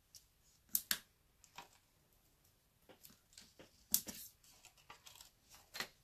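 Scattered small clicks and crackles of foam adhesive dimensionals being peeled from their backing sheet and pressed onto a paper die-cut. The sharpest clicks come about three-quarters of a second, four seconds and six seconds in.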